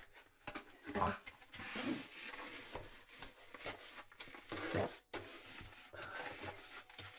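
Small hand brush sweeping sawdust off a cabinet's base into a bowl: repeated short, scratchy brushing strokes.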